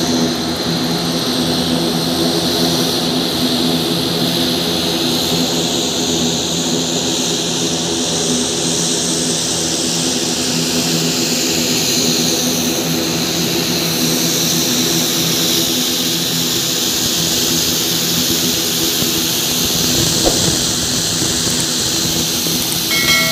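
ATR 72-600 twin turboprop's engines and propellers running steadily as the aircraft taxis in: a constant droning hum with a high turbine hiss and whine. There is a short knock near the end.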